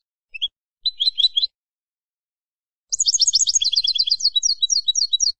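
Wild European goldfinch singing: a couple of short calls and a brief twitter in the first second and a half, then a rapid, high, tinkling twittering phrase from about three seconds in that stops abruptly just before the end.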